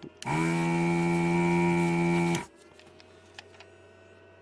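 Vacuum pump of a Katsu ZD-8915 desoldering station running as the trigger is pulled, sucking molten solder off a joint through the heated nozzle. It is a steady loud motor tone with hiss that stops abruptly about two and a half seconds in, leaving a faint mains hum.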